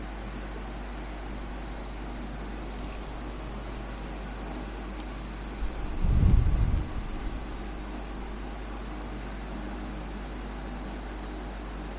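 A steady high-pitched electronic whine over a low hum, unbroken throughout, with a single low thump about six seconds in.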